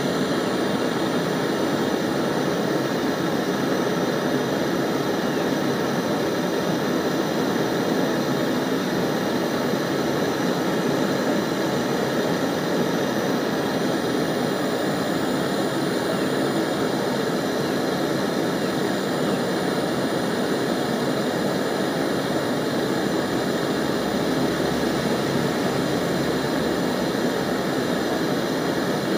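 LPG hand torch burning with a steady, even rushing flame noise.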